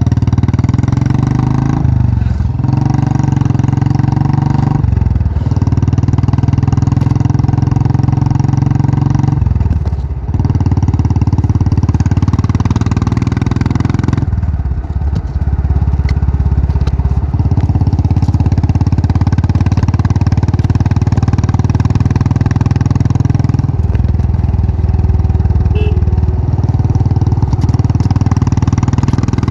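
Royal Enfield Bullet's single-cylinder engine running under way, its exhaust note falling away briefly several times before picking up again.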